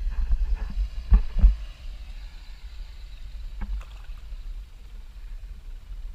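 Wading footsteps through shallow flood water: sloshing and splashing, with two heavier splashes a little over a second in. A low rumble of wind on the action camera's microphone runs underneath.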